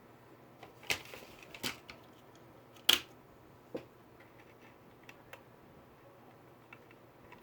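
Sharp clicks and taps of small hard parts and tools being handled on a laptop during an SSD install: a few distinct clicks in the first four seconds, the loudest about three seconds in, then only faint ticks.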